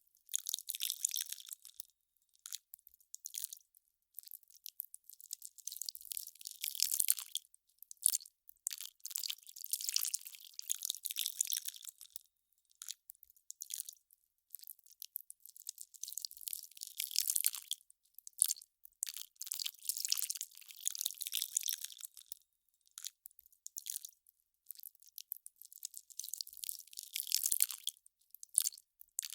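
Melting ice crackling: dense, fine crisp crackles that come in irregular bursts a second to a few seconds long, with short silent gaps between.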